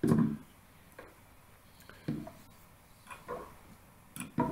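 Small square glass dropper bottles of acrylic ink being picked up and set down on a table, giving about five separate knocks and clinks spaced roughly a second apart. The loudest knock comes right at the start.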